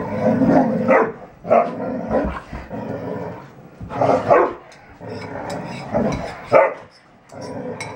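Standard poodles barking and growling as they play-fight, in a string of short, irregular bursts.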